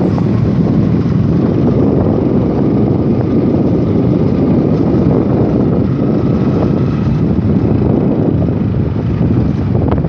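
Wind rushing over the microphone on a moving motorcycle, mixed with the motorcycle's engine running steadily as it rides along a gravel road.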